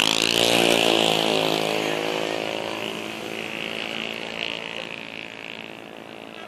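A bus's diesel engine passing close by, loudest about a second in and then fading away over the next few seconds.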